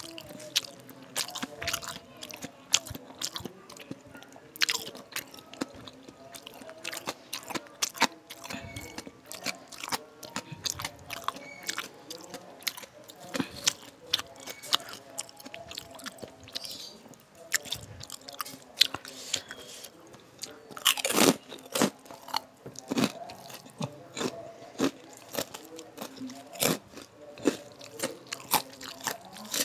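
Close-miked chewing of a mouthful of rice with jackfruit curry and young jengkol, with many sharp crisp crunches throughout and a loud cluster of them about two-thirds of the way in.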